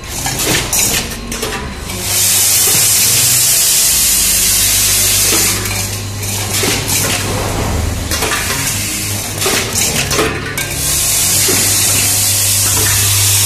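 Vibratory bowl feeder buzzing steadily while loose screws and bolts rattle and clink against its steel bowl and track. Two long, loud hisses of several seconds each break in, one about two seconds in and one after about eleven seconds.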